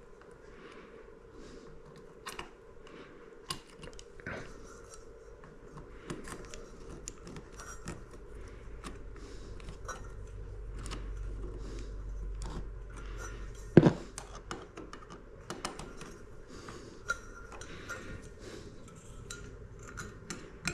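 Small metal light-fixture parts (mounting screws, washers and the metal canopy) clicking and clinking as they are handled and fitted to the ceiling bracket, with one sharper knock about 14 seconds in.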